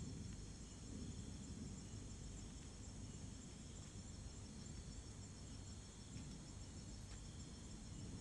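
Crickets chirping steadily at night, a faint, high, rapidly pulsing trill, over a low steady rumble.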